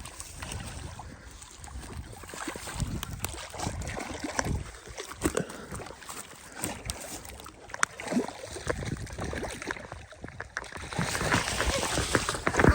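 Water sloshing and splashing, with wind buffeting the microphone and scattered small knocks; the splashing grows louder near the end.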